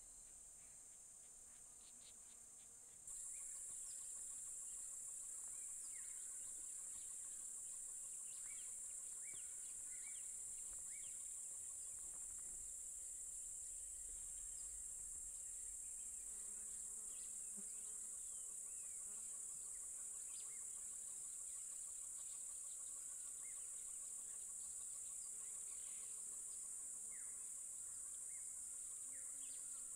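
Steady high-pitched drone of an insect chorus, stepping up suddenly in level about three seconds in, with short chirps scattered over it.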